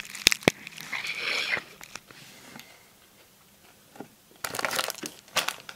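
Packaging being handled: a torn Lay's crisp bag and plastic coupon sleeves crinkling, in one spell about a second in and another near the end, with two sharp clicks at the very start.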